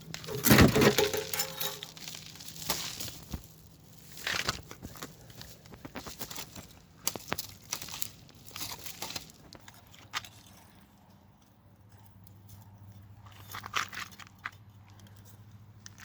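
Irregular rustling, scraping and sharp clicks of hand work with tools and parts, loudest in a burst about half a second in, over a faint steady hum.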